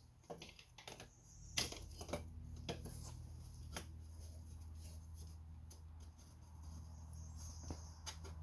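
Faint, scattered clicks and taps of hand tools and small metal parts being handled, over a low steady hum. The clicks bunch in the first few seconds, the loudest about a second and a half in, with two more near the end.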